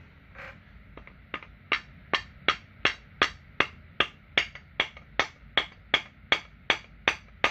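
Red mallet tapping a crankshaft and its greased main bearing into a McCulloch 101B chainsaw crankcase, a press fit driven in cold. Light, evenly spaced knocks, about two and a half a second, begin a little over a second in.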